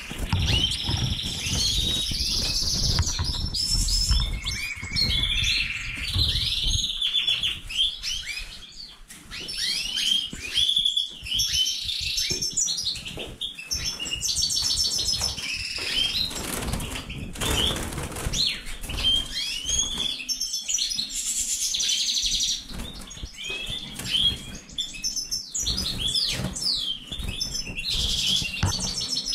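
A roomful of caged finches (colour canaries, European goldfinches and Magellanic siskins) chirping and singing over one another without pause, with many quick rising-and-falling calls and fast buzzy trills. A low rumble runs under the birds for the first several seconds.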